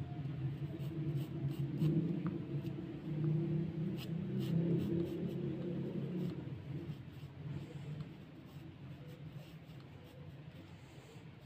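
Graphite pencil scratching on drawing paper in short sketching strokes, over a low rumble that fades away about two-thirds of the way through.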